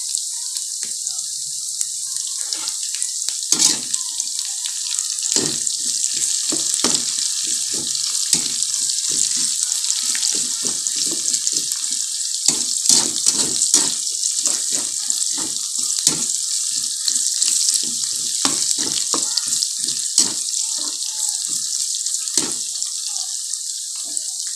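Minced garlic and sliced onion frying in hot rendered pork fat in a wok, a steady high sizzle, with frequent short scrapes and taps of a spatula stirring them.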